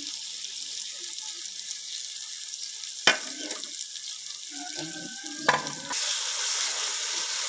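Aloe vera gel frying in onion-and-spice masala in an aluminium wok: a steady sizzle, with a wooden spatula stirring and knocking sharply against the pan twice. About six seconds in, the sizzle grows louder.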